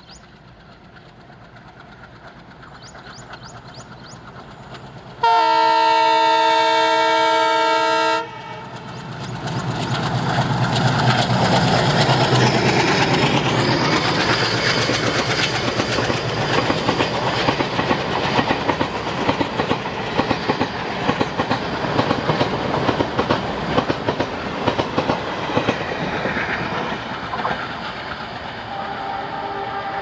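ALCo WDG3a diesel locomotive approaching, its engine growing louder, then sounding its horn in one long blast of about three seconds. The engine and the coaches then run past with regular clacks of the wheels over rail joints, slowly fading near the end.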